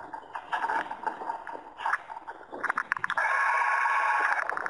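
Water splashing and gurgling against the hull of a small RC sailing yacht, heard from on deck in irregular bursts. About three seconds in, a steady whir with a faint tone takes over for about a second and a half as the boat heels and the boom swings out, typical of the sail winch servo letting out the sheet.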